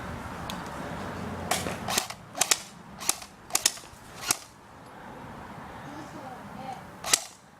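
Airsoft gun firing single shots: about seven sharp pops in quick succession, then one more near the end.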